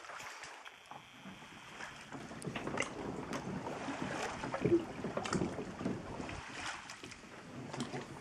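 Shallow pond water sloshing and lapping, with small irregular splashes as a dog and a person wade in it.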